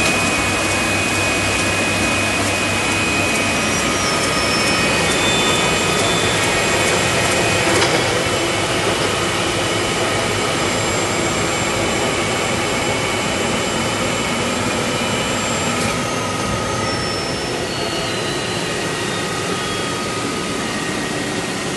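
HP Indigo 7900 digital printing press running with its side panel open: a steady whir of fans and motors with a few high whining tones. It drops slightly in level about sixteen seconds in.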